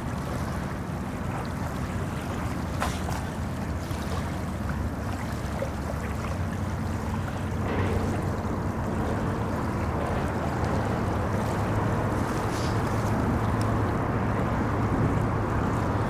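Fraser River water flowing, with a steady rumble of traffic crossing Mission Bridge. A low engine hum from the traffic grows a little louder about halfway through.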